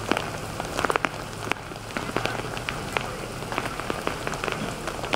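Heavy rain falling steadily on flooded pavement and standing water, with frequent sharp drip impacts close by.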